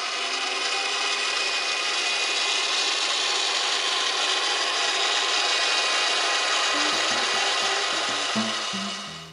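RC truck's small electric motor and gearbox running steadily, driving the driveshafts and axles with the wheels spinning freely off the ground. It fades away near the end.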